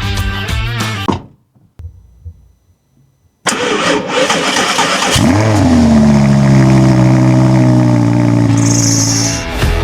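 Audi R8 V10 cold start: the starter cranks, the engine catches with a rev flare that rises and falls, then settles into a loud, steady fast idle.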